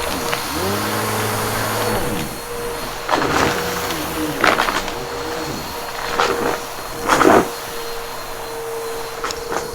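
Bissell PowerForce Helix upright vacuum running with a steady motor whine, its brush roll crunching through a pile of dry debris in four louder bursts a second or so apart.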